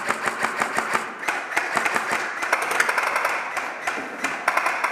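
M4-style airsoft electric rifle firing long, rapid full-auto bursts, its gearbox cycling in an even rattle of clicks with a couple of short breaks between bursts.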